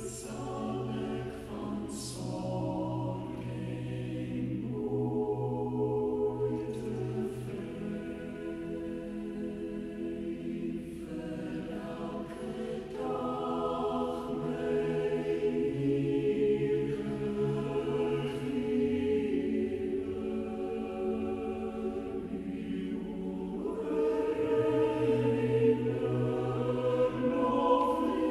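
Choral music: a choir singing slow, sustained chords.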